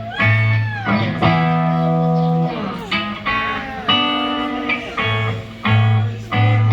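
Electric guitar playing slow, bluesy rock licks with bent notes, over held bass notes.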